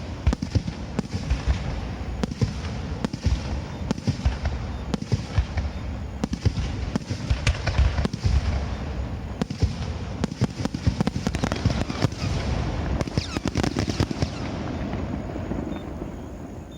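Aerial fireworks bursting in a dense, continuous barrage of booms with crackle over the top. The barrage dies away in the last second or two.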